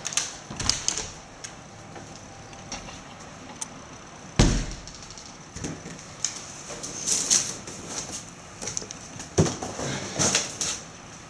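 Scattered clicks, knocks and rustling, as of objects being handled, with one heavy thump a little under halfway through and a second, lighter one later.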